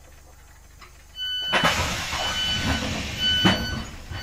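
Door warning beeper of a Class 465/9 Networker electric train sounding a high beep about once a second as the sliding passenger doors work, starting about a second in with a sudden hiss and rumble from the doors and two thumps.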